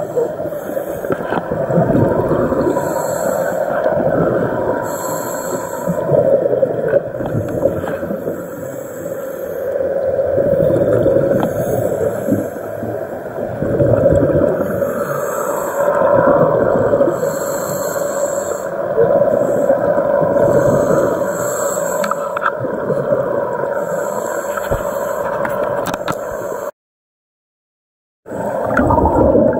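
Underwater sound picked up by a diver's camera: a muffled, continuous water rush and gurgle, with short hissing bursts of bubbles every couple of seconds. The sound cuts out for about a second near the end.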